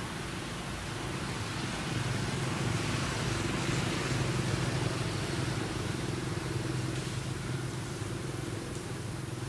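A motor vehicle's engine running with a steady low hum. It grows louder a couple of seconds in, then slowly eases off.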